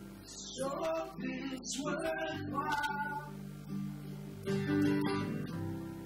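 Live acoustic song: an Alvarez steel-string acoustic guitar strummed, with chords from a Roland FP-50 digital piano, and a voice singing a phrase over them for the first few seconds.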